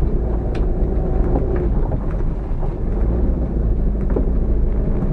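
Dacia 1300's four-cylinder engine and road noise heard from inside the cabin while driving slowly on a rough dirt road: a steady low rumble with a few light knocks and rattles.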